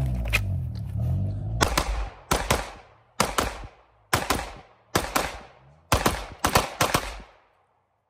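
Gunshots: about a dozen shots fired in quick pairs, each with a short echoing tail. A music track's bass runs under the first two seconds, and the shooting stops about a second before the end.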